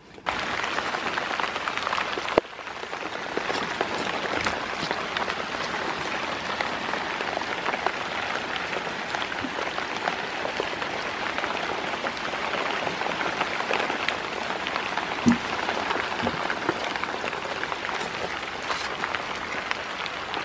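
Steady rain on a shelter: a dense hiss of falling water full of crisp individual drop ticks, cutting in suddenly at the start. A sharp knock comes about two and a half seconds in, and a short low thump later on.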